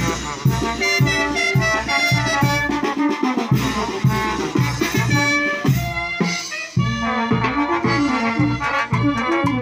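A live brass band playing lively Latin dance music: horns carry the tune over a tuba bass line and drums. The band thins out briefly just past halfway before the full band comes back in.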